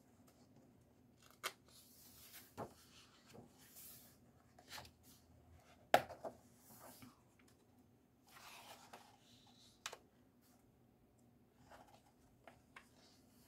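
Pages of a paper coloring book being turned one after another: soft swishes and rustles of paper, with a few sharp taps, the loudest about six seconds in.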